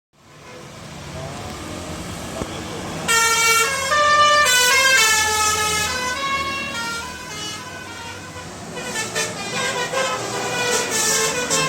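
A bus engine running, then from about three seconds in a multi-tone 'telolet' musical air horn plays a melody of stepped, held notes; near the end the notes come in quicker repeated blasts.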